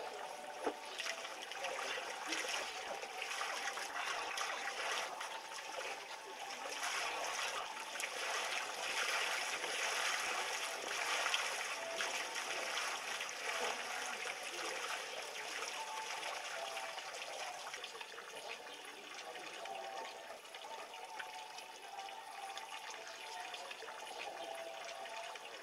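Water trickling and running steadily in a wooden outdoor bathtub with a capybara soaking in it, a little louder for a few seconds near the middle.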